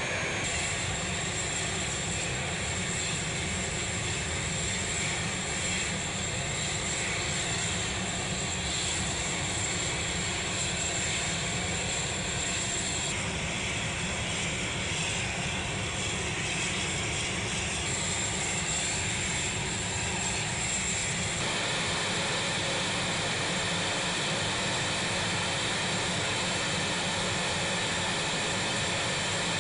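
A-10 Thunderbolt II's twin TF34 turbofan engines running steadily: a constant rush with a thin high whine on top, its tone changing abruptly about 13 and 21 seconds in.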